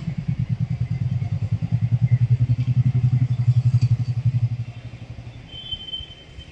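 Motorcycle engine running close by with a low, fast pulsing beat. It starts suddenly, is loudest through the middle, and fades away after about five seconds.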